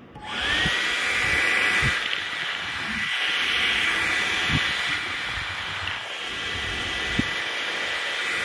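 Nova NHP hair dryer switched on and running on its cold setting: a motor whine that rises quickly to a steady high pitch over a rush of air, with a few low thumps, cutting off near the end.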